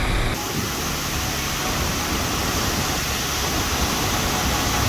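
Steady rushing roar of a waterfall in heavy flow, swollen after much rain. The tone of the rush changes abruptly just after the start, then holds steady.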